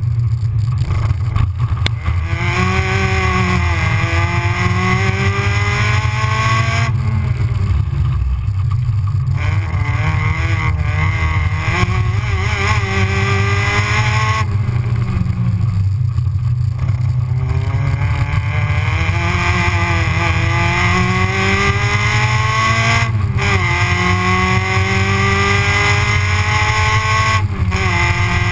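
Ford Fiesta XR2's four-cylinder engine pulling hard on a sprint track, its pitch climbing again and again as it accelerates, with short breaks where it comes off the throttle, about seven, fifteen, twenty-three and twenty-seven seconds in. A constant heavy low rumble runs underneath.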